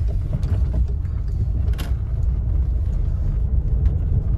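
Steady low rumble of a car driving, heard from inside the cabin, with one short sharp noise about two seconds in.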